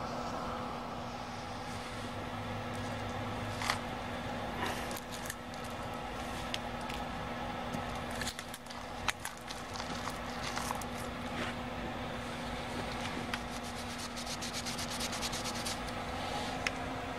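Cloth rubbing and scraping over the edge of a moldy 2-inch quad videotape pack as the mold is wiped off, with scattered scratchy clicks that come thick and fast near the end. A steady low hum runs underneath.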